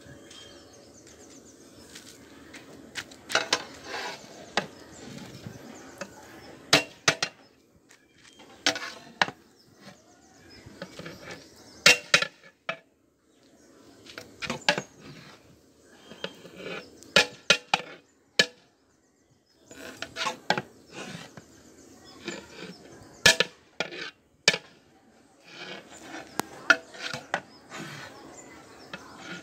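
A long-handled flat metal ladle scraping through cooked biryani rice and clanking against the sides and rim of a large metal cooking pot, as the biryani is turned over after its dum cooking. The scrapes and clanks come in irregular spells with short pauses between them.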